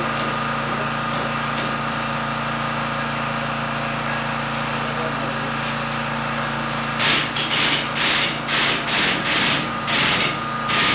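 A steady hum with a few fixed tones. About seven seconds in, quick rhythmic back-and-forth hand-sanding strokes start, about three a second.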